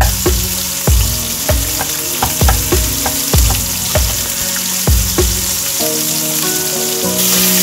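Food sizzling as it fries in a pan, the sizzle growing a little louder near the end. Background music with a steady thumping beat plays over it, and the beat drops out about six seconds in.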